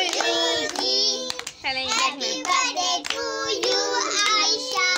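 Children singing in high voices, holding notes with a wavering pitch.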